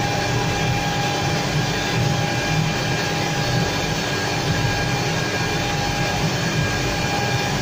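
IMA Compact S-312 automatic edgebanding machine running with its conveyor: a steady mechanical drone and rumble, with a few steady high tones held throughout.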